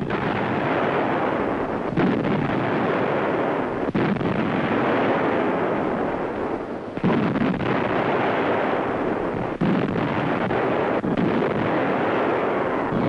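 A warship's guns firing in action: a continuous heavy rumble of gunfire, with a sharp new shot every two to three seconds.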